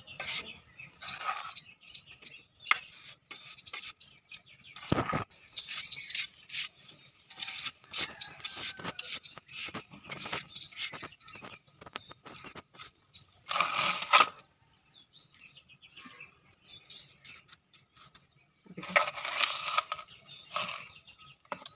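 Small steel trowel scraping and patting wet cement mortar over a newspaper-covered basket mould, as short scrapes and taps. Two longer, louder scrapes come about two-thirds through and again near the end, the second as the trowel scoops mortar from a steel bowl. Birds chirp faintly in the background.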